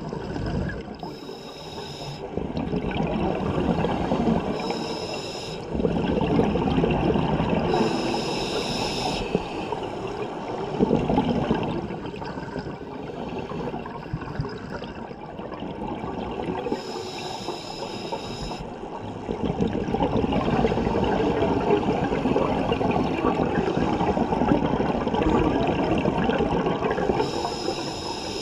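Scuba regulator breathing underwater: a short hiss with each inhale, at uneven intervals of several seconds, between long rushes of bubbling exhaled air.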